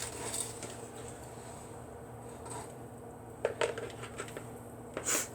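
Faint kitchen handling sounds: a few light clicks and rustles from three and a half seconds in, and a sharper crackle near the end.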